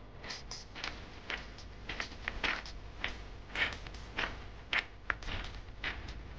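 Footsteps of someone walking at an even pace, a short scuffing step about every half second.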